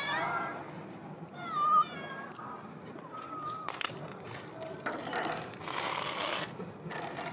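Orange tabby cat meowing: one meow at the very start, another just under two seconds in and a shorter one about three seconds in. After that come a couple of clicks and a rustling scrape as a bowl of dry cat food is set down on the concrete.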